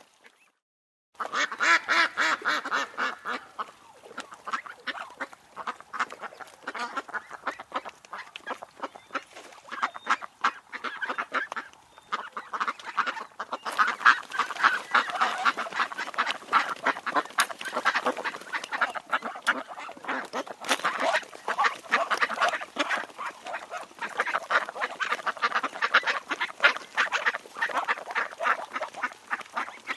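A flock of ducks calling and quacking continuously, many rapid calls overlapping one another, after about a second of silence at the start.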